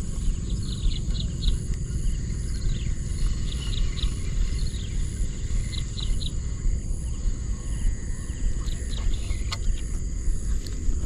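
Wind buffeting the microphone outdoors as a steady low rumble, with small birds chirping in short repeated bursts over it.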